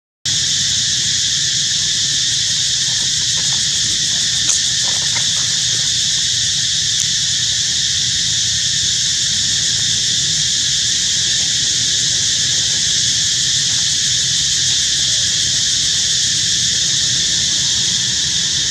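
Steady, high-pitched drone of an insect chorus, unchanging throughout, with a faint low rumble beneath and a single brief click about four and a half seconds in.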